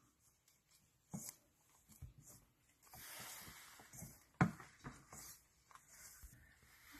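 Gloved hand rubbing butter into cake flour in a metal mixing bowl: faint rustling and scrunching of the flour, with a few soft knocks against the bowl, the sharpest about four and a half seconds in.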